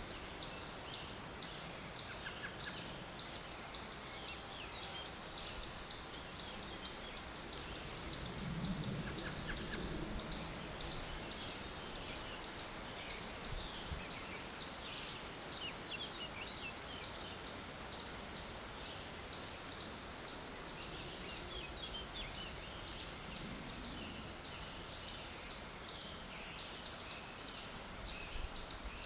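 Outdoor nature ambience: a steady run of rapid high chirps, about three or four a second, over a soft background hiss, with a faint low buzz passing about nine seconds in and again near the end.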